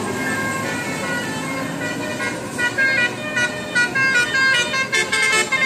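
Bus 'telolet' multi-tone horn playing a quick tune of short stepped notes, starting about two seconds in and getting louder near the end.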